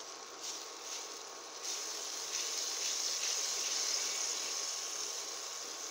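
Lime juice squeezed by hand into hot ginger-scallion oil in a stainless steel pan, sizzling: a few short spurts, then a steady sizzle from about two seconds in.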